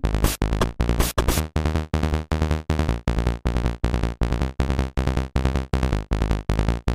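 Electronic background music with a fast, steady beat.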